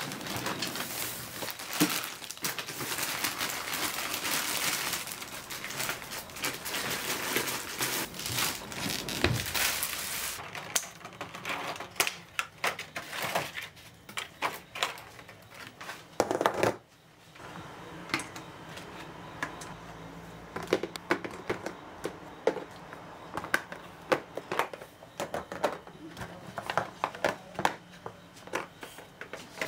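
Clear plastic egg cartons being handled and opened: thin plastic crinkling in a dense crackle at first, then many sharp separate clicks and taps.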